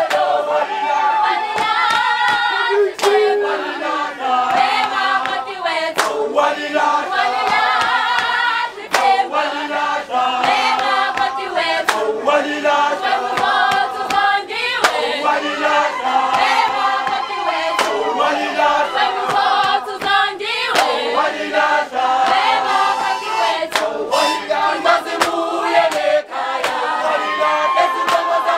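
A group of women singing a traditional Zulu song together without instruments, with sharp hits from the dancers scattered through the singing.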